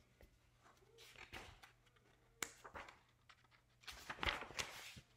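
Faint rustling of a picture book's paper pages being turned, with a short sharp tap about halfway through and a longer rustle near the end.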